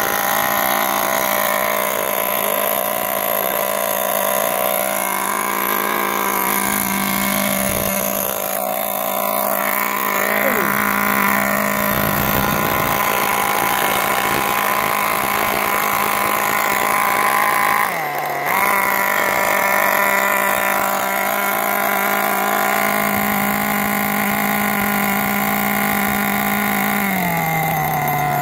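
Small nitro glow engine of a Kyosho Inferno 1/8 buggy running at a steady idle on the ground while its carburettor is being set up. About eighteen seconds in it briefly dips, and near the end the idle slows, stepping down in pitch.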